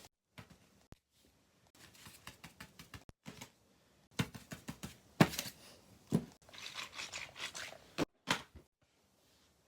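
Fidget toys handled by hand: quick irregular clicks, taps and rustling of small plastic pieces, in short bursts broken by sudden cuts.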